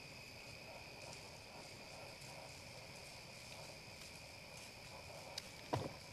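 Insects chirring steadily at a high pitch, with a sharp click and then a louder knock near the end.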